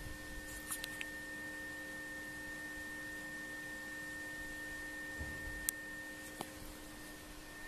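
Faint steady hum with a constant high tone over hiss, and a few soft clicks.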